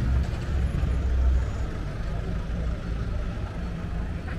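City street traffic: a low motor-vehicle rumble, loudest in the first second and a half, settling into a steady low hum.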